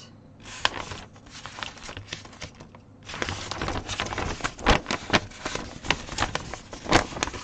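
Crinkling and rustling of a stamped cross stitch kit being handled, with sharp clicks. It is sparse for about three seconds, then turns busy and continuous.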